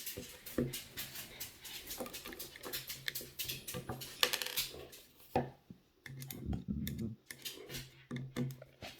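Small plastic and metal parts of a 1995 Honda Del Sol's headlight and turn-signal switch clicking and tapping as they are handled and fitted back together: many short, irregular clicks.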